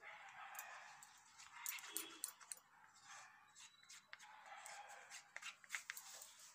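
Plastic spoon stirring and scraping thick gold printing paste (gold binder mixed with gold powder) in a small bowl: faint, uneven scraping in slow strokes with light clicks of the spoon against the bowl.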